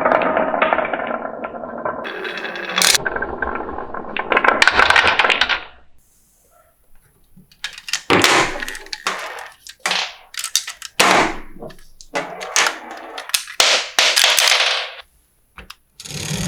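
Marbles rolling and clacking along a wooden marble-run track: a continuous rattle for about six seconds, a brief pause, then a string of sharp separate clacks and short rattles.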